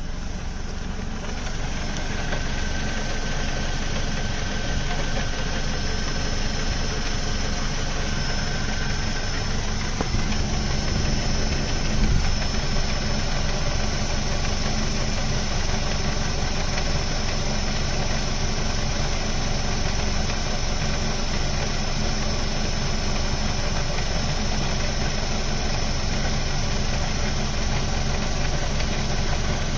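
Ford Focus mk2's 2.0 Duratec HE four-cylinder engine idling steadily with a rattle-knock that goes away when the clutch pedal is pressed. The rattle persists after a complete clutch replacement, and the flywheel and release bearing are ruled out; the owner wonders whether it is rod knock.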